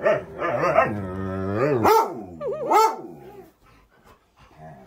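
Husky vocalising in a run of drawn-out calls that slide up and down in pitch, dying down after about three and a half seconds.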